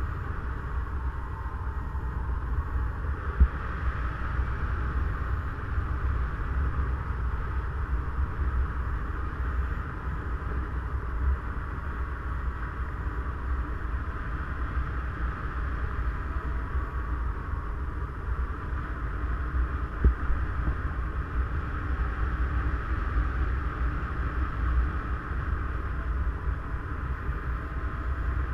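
Airflow buffeting the camera's microphone on a paraglider in flight: a steady low rumble with an even rushing hiss over it, and two brief knocks, a few seconds in and again about two-thirds of the way through.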